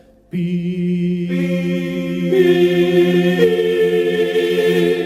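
Vocal quartet singing a held chord: a low note comes in just after the start, and further voices join about a second and two seconds in, holding steady until it stops at the end.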